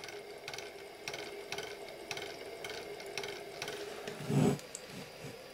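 Small DC drive motor of a Honeywell altitude indicator running on a few volts, turning its gear train and altitude counter drums: a steady whir with regular clicks about twice a second, quite noisy. A short low hum stands out about four seconds in.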